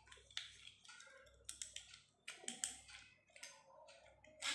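Faint, irregular plastic clicks and taps: a Beyblade top and its launcher being handled.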